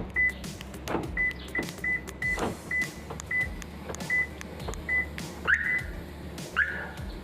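Toyota Calya's alarm buzzer giving about nine short, high beeps at uneven intervals, with faint clicks between them, as its buzzer/siren setting is being changed. Near the end come two short rising chirps.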